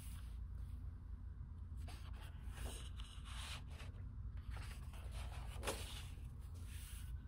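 Pages of a large, heavy hardcover art book being turned one after another, with several short paper swishes and rustles, the loudest near the end, over a faint steady low hum.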